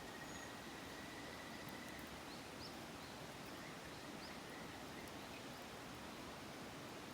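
Bonfire crackling faintly over a steady rushing hiss, with a few faint high chirps midway through.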